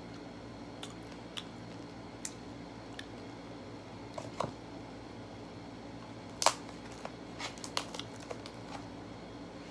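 Someone eating sugar-coated candied strawberries: scattered crisp cracks and crunches of the hard candy shell, the loudest about six and a half seconds in and a quick run of them just after, over a low steady room hum.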